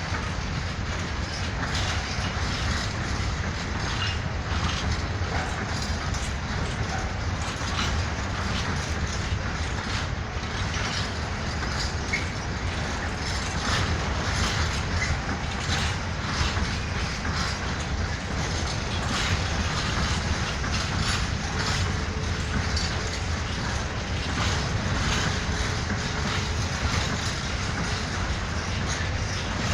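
Freight train rolling past: a steady low rumble of wagons with frequent short clicks of wheels over the rails.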